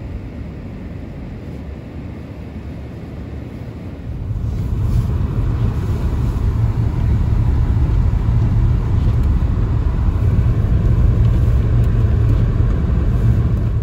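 Car interior noise while driving on a snow-covered road: a steady low rumble of engine and tyres heard from inside the cabin. It gets clearly louder about four seconds in.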